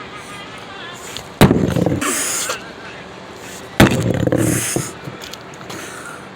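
Two heavy hammer blows in demolition work, about two and a half seconds apart, each a sharp loud crack followed by about a second of clatter.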